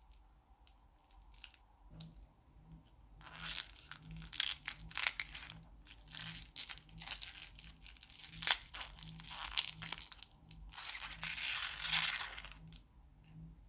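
A lollipop's plastic wrapper being peeled and torn off by hand: a run of crinkling and tearing that starts about three seconds in and stops shortly before the end.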